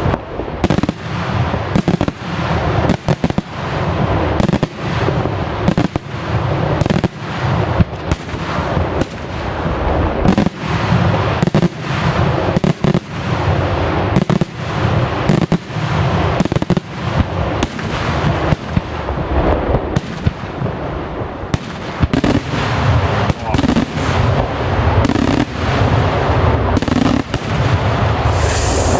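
Daytime fireworks: aerial shells bursting overhead in a rapid, continuous volley of loud bangs, a few a second, with a brief hiss near the end.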